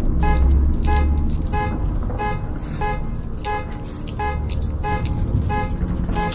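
Car alarm going off, blaring the car's horn in short repeated honks, about one and a half a second.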